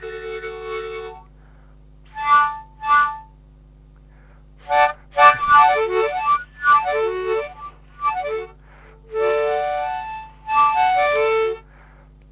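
Harmonica played in short, separate phrases with pauses: a held chord that stops about a second in, two short notes, a quick run of notes, then two held chords near the end.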